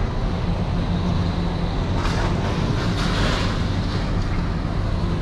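Vehicle engine idling steadily, with a swell of hissing noise from about two to three and a half seconds in.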